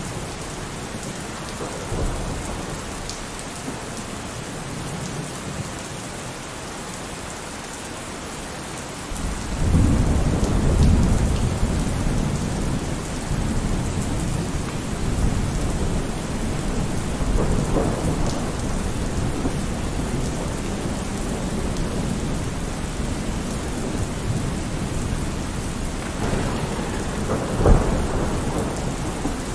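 Steady rain with rolling thunder: a constant hiss of rain, with a deep rumble of thunder building suddenly about nine seconds in and further rumbles later.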